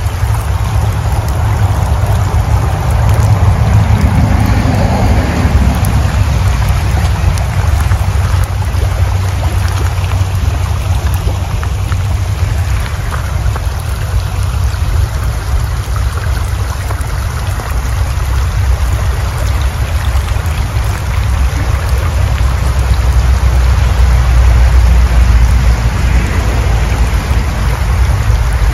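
Floodwater rushing down a swollen woodland creek: a steady, loud rushing noise with a deep low rumble underneath.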